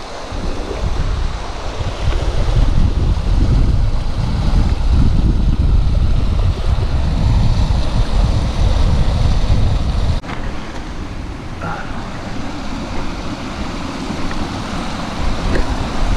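Water rushing over a dam spillway and tumbling down a rocky stream, a steady hiss, with wind buffeting the microphone. The wind rumble eases suddenly about ten seconds in.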